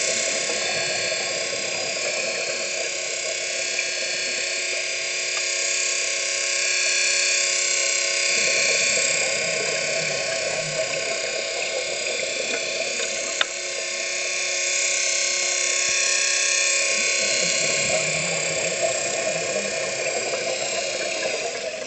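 Drilling machinery running steadily, a machine whine made of several held tones. Two swells of lower rushing noise come partway through and near the end, with a single click in the middle.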